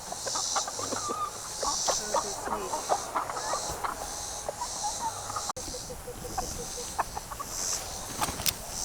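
A flock of chickens clucking, with many short, scattered calls. Behind them runs a high hiss that swells and fades about once a second.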